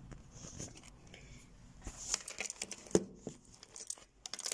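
Handling noise as a phone is picked up and moved, with rustling and a few soft knocks; the sharpest knock comes about three seconds in.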